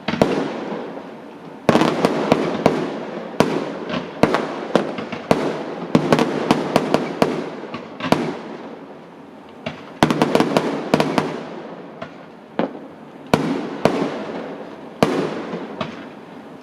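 Fireworks exploding in rapid, irregular volleys: sharp bangs with crackling and echoing tails, densest about two, six and ten seconds in.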